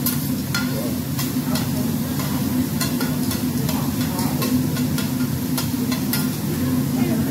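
Metal spatula chopping and scraping scrambled egg on a hot teppanyaki griddle: sharp metallic clinks about every half second over a steady sizzle, with a low steady hum underneath.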